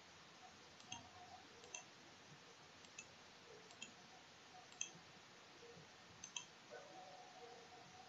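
Faint computer mouse clicks, about eight, some in quick pairs, over a low steady hiss.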